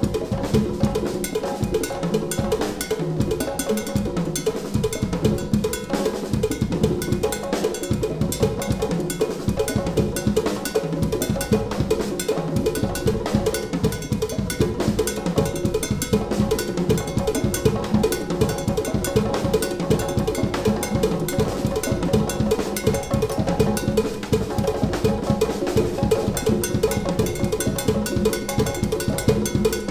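Drum kit solo in rumba style: dense, fast strokes on toms, snare, bass drum and cymbals over a clave pattern played by the left foot, with a cowbell-like clack in the mix.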